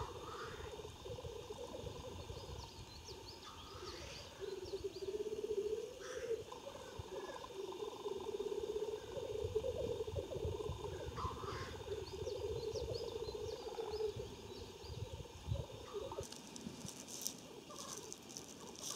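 Male black grouse at the lek giving their bubbling, cooing display song, a continuous run of fast pulsing coos that swells and fades in waves.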